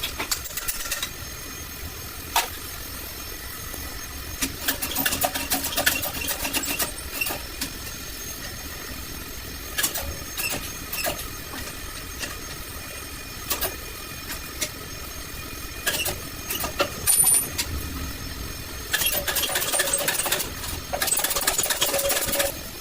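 Tools working on metal: scattered sharp clicks and knocks over a steady background hum, with two rattling bursts of a few seconds each, one about five seconds in and one near the end.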